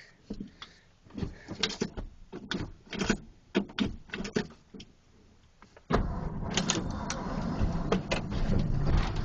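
A series of separate clicks and knocks, then about six seconds in the 1980 Ford F-150's 351M V8 fires up suddenly and keeps running.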